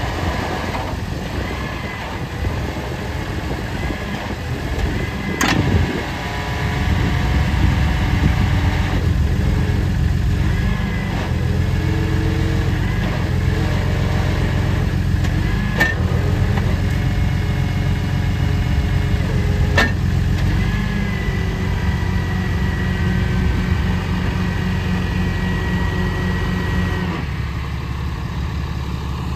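2009 Dodge Ram 3500 HD wrecker's engine running while the hydraulic boom and wheel-lift are worked. The engine note gets heavier about a quarter of the way in and drops back near the end. A whine rises and falls over it, with a few sharp clunks.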